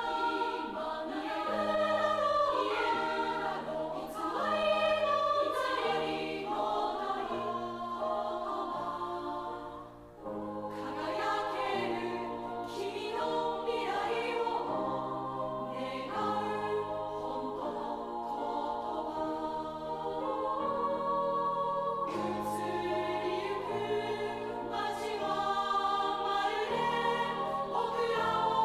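Choral music: a choir singing over an instrumental accompaniment with a steady bass line, easing off briefly about ten seconds in.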